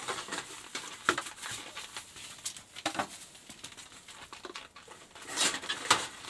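Irregular light knocks, clicks and rustling from car body parts being handled and moved about by hand, busiest near the end.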